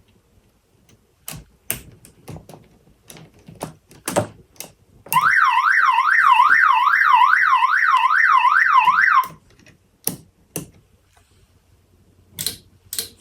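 Electronic warbling siren tone from a Snap Circuits fire alarm system's sounder, sweeping up and down about three times a second for roughly four seconds and then cutting off suddenly. Sharp clicks come before and after it.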